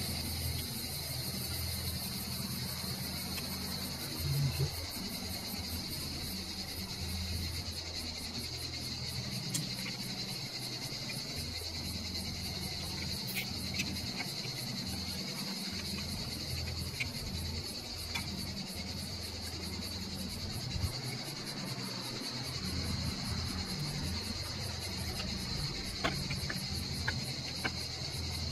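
Insects chirping steadily, with a low steady hum underneath and a few faint clicks and taps from handling a small plastic holder and its wires.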